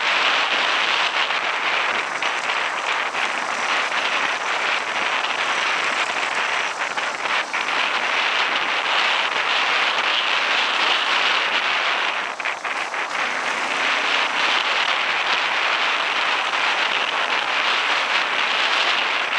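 Dirt bike riding along a dirt trail: a steady rush of engine noise and wind on the microphone, dipping briefly about twelve seconds in.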